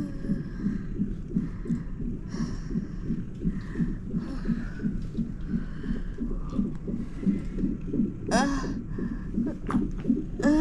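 Fetal heart monitor's Doppler speaker playing the baby's heartbeat as a steady pulse, a little over two beats a second. A brief voice sound cuts in about eight seconds in.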